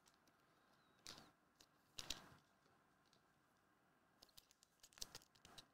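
Faint clicks and plastic rustles of a trading card being handled and slid into a rigid plastic toploader: a few short sounds about a second in and at two seconds, then a quick cluster near the end.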